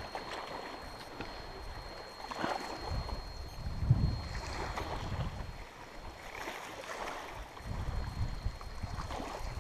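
Canoe being paddled on a river: paddle strokes swishing in the water every second or so, with wind buffeting the microphone in low rumbles that are strongest about four seconds in.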